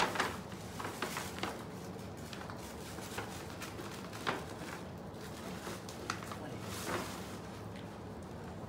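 Paper gift bag rustling and crinkling as a container is handled and lifted out of it, with a few light knocks and clicks, over a faint steady hum.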